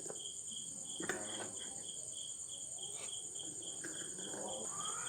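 A cricket chirping steadily in the background, about four high chirps a second, over a faint steady high whine, with a couple of faint knocks.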